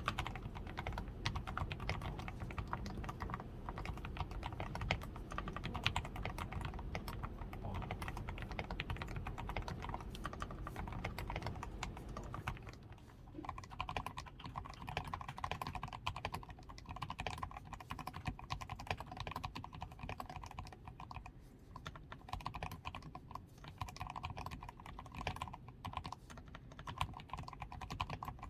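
Continuous typing on a DAREU A87 Pro mechanical keyboard that is fully lubed with Krytox 105, with lubed stabilizers, a tape-modded PCB and XDA keycaps: a dense, unbroken run of keystrokes. The keystrokes get a little lighter from a bit under halfway through.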